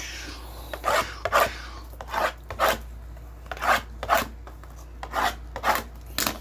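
Cardboard boxes being handled, scraping and sliding against each other: a series of short, uneven rasping strokes.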